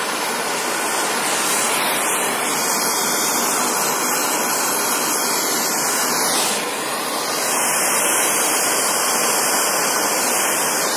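Flame of a handheld gas blowtorch hissing steadily while it heats a copper pipe joint for brazing with a silver rod. It goes briefly quieter a little past halfway.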